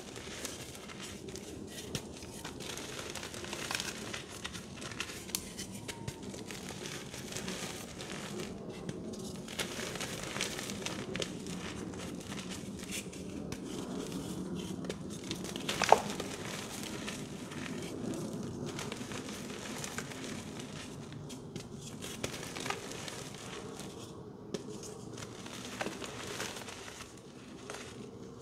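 Hands crushing and crumbling soft, dusty reformed blocks of dyed gym chalk into powder: a steady crumbly crunching with small crackles, and one sharp crack about halfway through.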